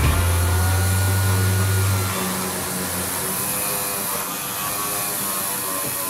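An orbital sander running steadily against the bare steel of a truck cab's door opening, with a steady hiss. A low hum underneath stops about two seconds in.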